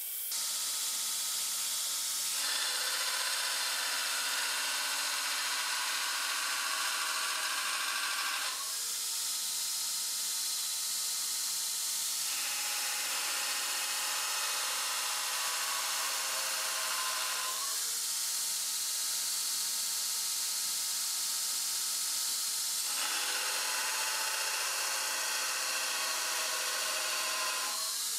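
Belt grinder driven by a 2 hp, 220 V WEG motor grinding a quarter-inch bar of unhardened 1095 steel in three presses of several seconds each, with the belt running freely between them. Under each press the motor audibly slows with the load.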